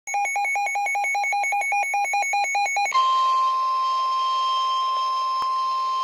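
Midland NOAA weather radio going off with an alert: rapid electronic beeping, about eight beeps a second, for about three seconds. It then switches to the steady single-pitch NOAA warning alarm tone, which signals that a weather warning is being broadcast.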